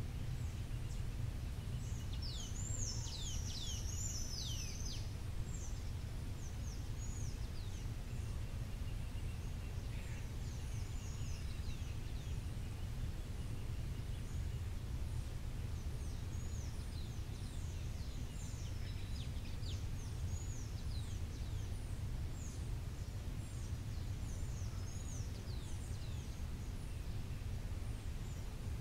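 Many short, high bird chirps, each falling quickly in pitch, come in clusters: a busy burst a few seconds in and another run through the second half. Underneath is a steady low rumble of background noise.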